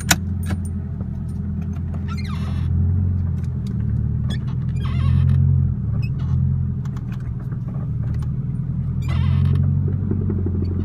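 VW van engine running steadily, swelling three times, each swell joined by a short scraping noise, with a sharp click right at the start. The van is being checked for whether its oversized tires still rub on the fender.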